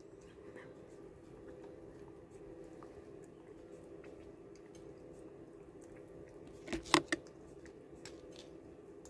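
A metal utensil clinking sharply against a plate three times in quick succession about seven seconds in, with faint scattered ticks of handling over a steady low hum.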